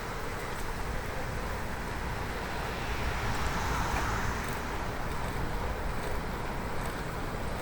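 Bicycle riding on a road: steady rumble of tyres and wind on the binaural microphones, with a swell of noise that rises and falls about halfway through, like a vehicle passing.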